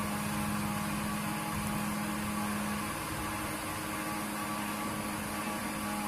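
Steady mechanical hum, like a fan or household appliance running, with a low tone that drops out about three seconds in.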